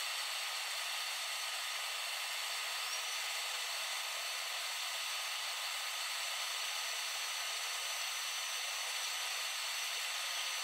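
A steady, even hiss with faint high whine tones and no low rumble.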